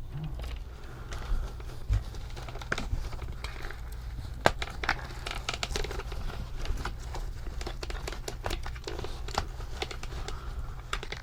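Crinkling and rustling of the hat's fabric and parts being handled, with many short light clicks and taps, over a steady low hum.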